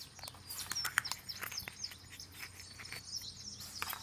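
Light clicks and crinkles as a surprise egg and its toy capsule are handled and opened, with faint, brief bird chirps in the background.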